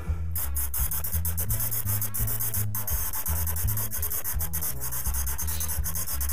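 A cordless drill boring holes into a softwood beam, giving a rapid, scratchy rasping that starts shortly after the beginning, over background music with a steady bass line.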